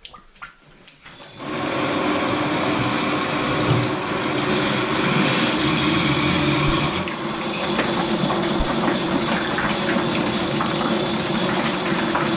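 Electric drain-cleaning machine running, spinning a steel spiral cable inside a drain pipe; it starts about a second and a half in and then runs steadily.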